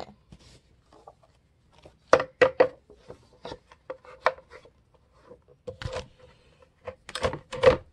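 Sheets of paper being handled and slid into the slot of a Cinch binding hole punch, with scattered light knocks and rubbing against the machine and tabletop.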